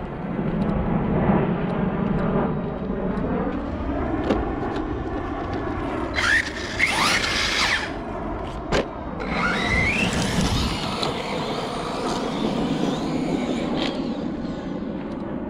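ARRMA Siren 6S 1/10-scale 4WD electric RC truck being driven hard. Its motor and drivetrain whine rises and falls with the throttle, with sharp rising whines around six and ten seconds. There is a short knock just before nine seconds.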